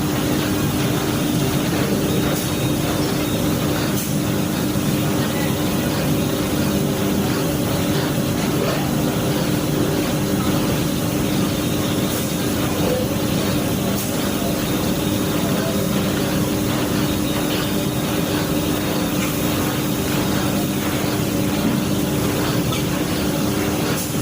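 Washing machine running with a steady motor hum and a constant droning tone over a noisy wash.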